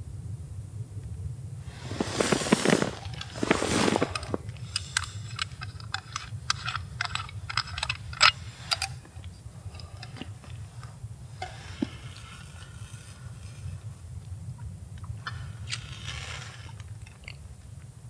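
Close handling noises: two loud rustling crunches, then a run of irregular sharp clicks and softer rustles, over a steady low rumble.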